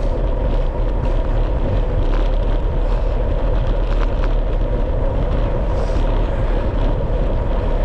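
Mountain bike descending a trail at speed: a steady rush of wind and low rumble on the microphone, with scattered clicks and rattles.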